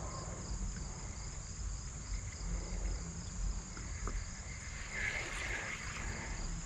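Insects in the riverside trees chirping continuously: a steady high-pitched buzz with a quickly pulsing chirp beneath it.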